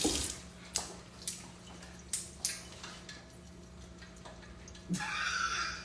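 Light kitchen clatter: a handful of sharp, separate clicks and taps of kitchenware over a steady low hum, then a brief hiss near the end.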